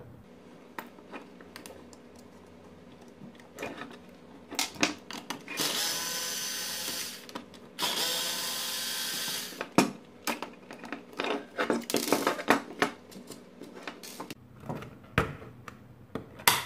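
Cordless drill-driver backing out two small screws: two runs of about two seconds each, about six and eight seconds in, then a short third burst. Around them are sharp clicks and taps of plastic parts and screws being handled.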